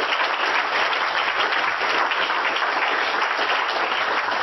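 Audience applauding: steady clapping from a roomful of listeners at the close of a talk.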